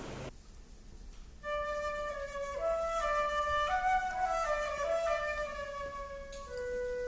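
A flute plays a slow solo melody of single notes, entering about one and a half seconds in and settling on a long held lower note near the end.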